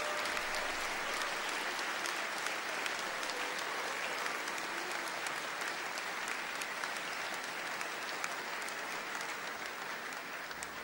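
Concert audience applauding: dense clapping that slowly dies down.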